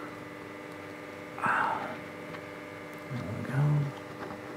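Steady mains hum with faint handling of small parts, a short breathy exhale about a second and a half in, and a brief low hummed vocal sound near the end.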